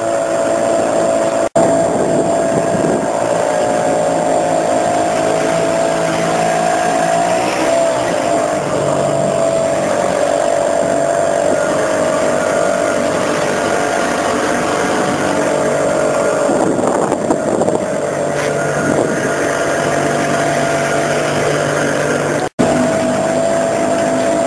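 A motorboat engine running at a steady speed. The sound cuts out twice, briefly, near the start and near the end.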